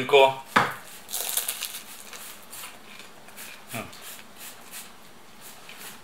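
Hands breaking open a crisp baked samsa over a ceramic plate. There is a single knock about half a second in, then the flaky crust crackles, followed by small scattered clicks.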